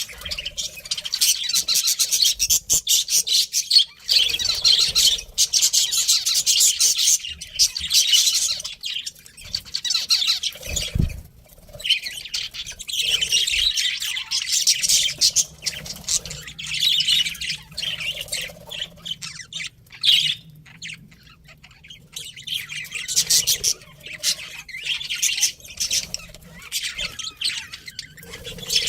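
Pet budgerigars chirping and chattering in quick warbling bouts, broken by short pauses.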